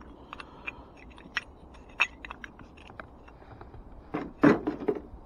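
Rusty scrap metal being picked up and handled: scattered light clicks and clinks, with a louder cluster of knocks about four seconds in.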